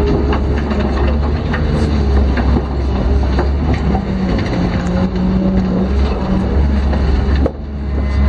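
JCB 210 excavator heard from inside its cab: the diesel engine runs steadily with a hydraulic whine that shifts in pitch as the boom and bucket move. Scattered clanks and rattles of the machine come through on top.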